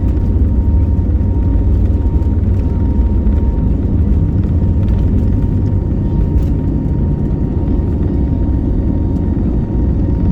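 Cabin sound of an Airbus A321neo's CFM LEAP-1A turbofans at takeoff thrust during the takeoff roll: a loud, steady rumble with a thin steady whine over it. The aircraft rotates for liftoff about four seconds in.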